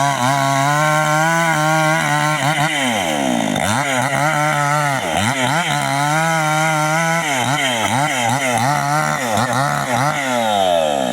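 Small chainsaw working through young teak: the motor holds a steady high pitch, then drops and climbs again several times as the throttle and cutting load change.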